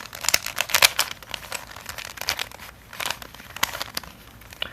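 A Fisher cube, a plastic 3x3 puzzle cube, being turned by hand: quick runs of plastic clicks and clacks as its layers are rotated, with short pauses between the runs.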